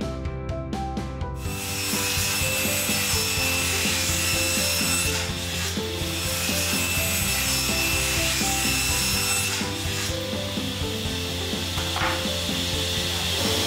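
Table saw starting to cut about a second and a half in, its blade ripping through a glued-up wood panel with a steady rushing noise and a high whine, over background music. A short knock near the end.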